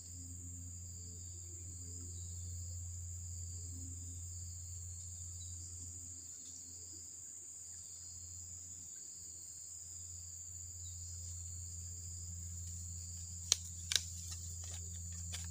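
Steady high-pitched drone of insects, crickets, over a low steady hum. About two seconds before the end come two sharp clicks half a second apart, then a few fainter ones, as the bamboo rod is lifted.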